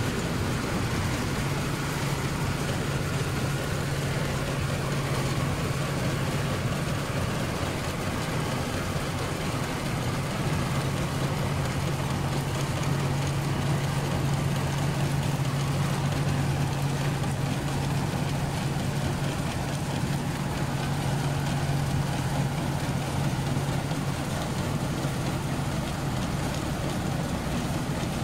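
Vintage Ransomes combine harvester working, its engine running as a steady drone under an even rushing noise.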